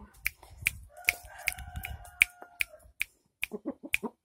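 Fingers snapping in an even run, about two or three sharp snaps a second.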